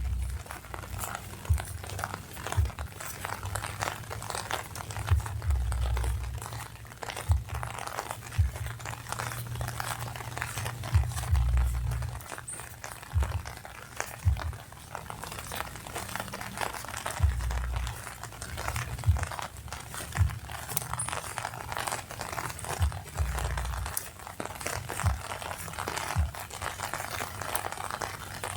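Rain falling on an umbrella, a steady patter dotted with many sharp drop ticks, with dull low thuds recurring throughout.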